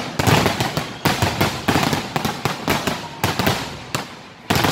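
Fireworks display: aerial shells bursting in a rapid run of sharp bangs. The bangs come thickest in the first second, then one every few tenths of a second.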